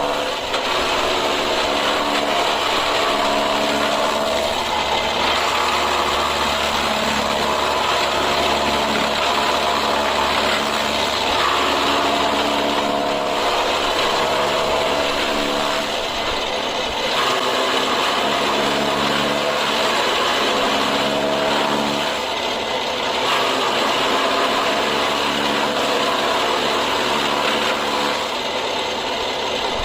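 A 3 hp single-phase electric chaff cutter running at high speed: a steady machine drone whose lower tones shift every couple of seconds.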